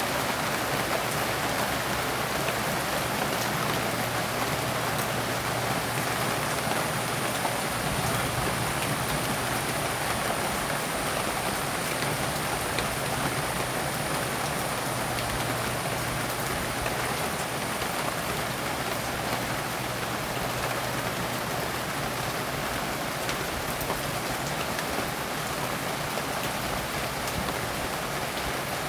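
Steady rain falling on leaves: a dense, even patter of drops.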